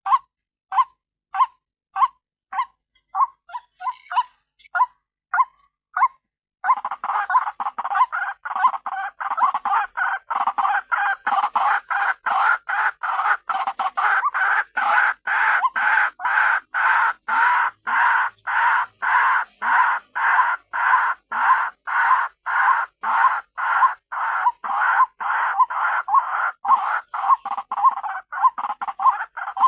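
White-breasted waterhen calling, a short call repeated about twice a second. After a brief pause some six seconds in, the calling comes back denser, the calls running into one another.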